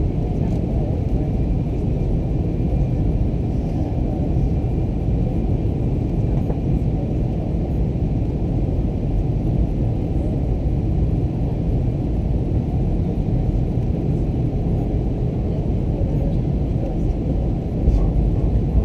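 Steady rumble of an Airbus A321's engines and airflow, heard inside the cabin on approach, growing a little louder near the end.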